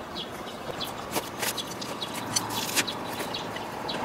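Hand trowel digging into dry soil and wood-chip mulch, with irregular scraping and crunching strokes.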